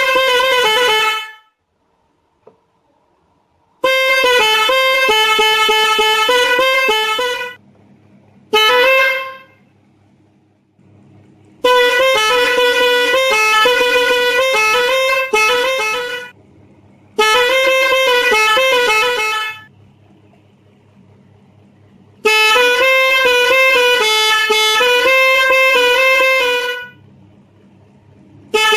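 Telolet keong, a loud snail-shaped melody horn, playing short tunes note by note in about six separate runs of one to five seconds, with brief pauses between them.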